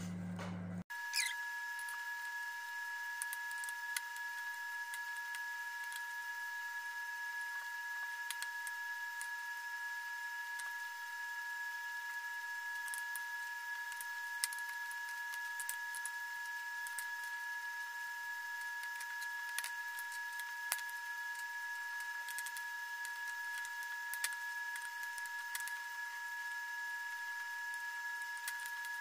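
Scattered faint clicks of a metal spoon and fork on a plate as someone eats, over a steady high-pitched hum.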